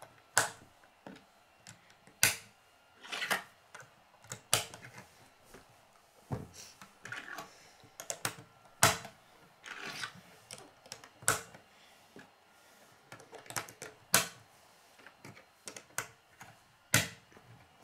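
K'nex plastic pieces being pushed onto a white K'nex hub connector by hand: irregular sharp plastic clicks as they snap into place, with softer rustling and scraping of the pieces between.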